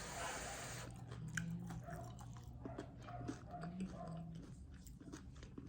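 Quiet, irregular small clicks and crunches, with a steady low hum underneath.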